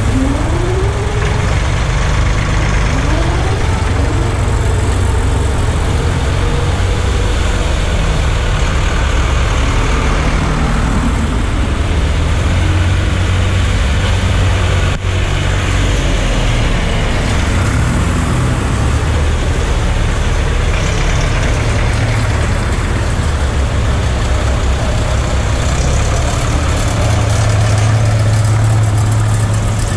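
Vintage tractor engines running, one idling close by, while tractors drive through a shallow ford with water splashing around their wheels. An engine revs up briefly twice in the first few seconds.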